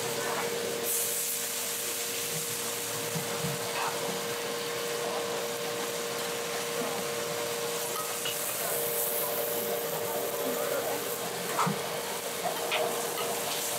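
Boneless duck pieces sizzling as they are stir-fried in a wok, with a metal ladle scraping and clicking against the wok now and then. A steady hum runs underneath.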